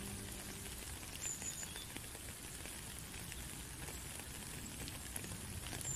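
Rain falling on a puddle and wet ground: a steady patter with scattered individual drop clicks. The last notes of an acoustic guitar fade out in the first half second.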